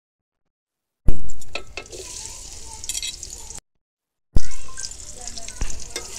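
Sliced onions frying in hot oil in a metal karahi. A loud burst of sizzling starts about a second in and settles to a steady sizzle with a metal spatula clicking against the pan. The sound cuts out briefly, then a second loud burst of sizzling starts a little over four seconds in.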